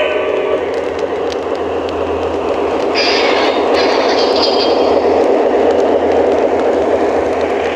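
Model train running on the layout track: a steady rolling rumble with scattered light clicks, and a brief higher-pitched sound for about a second and a half starting about three seconds in.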